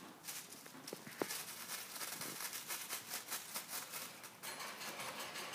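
Thin plastic bag crinkling and rustling as a chipmunk pulls at it and works it into its mouth, in quick irregular crackles that are busiest in the middle.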